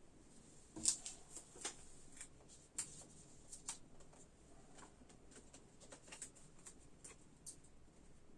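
Faint, scattered light clicks and rustles of objects being handled, with the strongest click about a second in.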